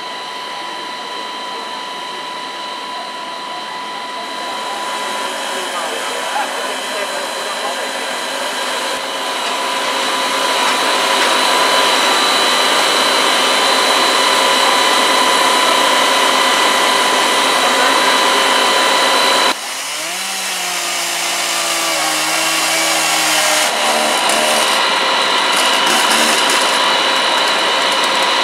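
Fire-service machinery running: a steady high whine over a rushing noise that grows louder. About two-thirds of the way through it breaks off suddenly, and a lower motor note spins up and levels off before the rushing noise returns.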